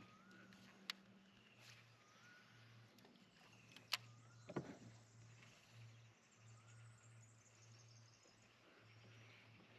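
Quiet riverside ambience: a bird repeating a short rising whistle every second or two over a faint low hum. Sharp clicks come at about one and four seconds in, followed by a knock.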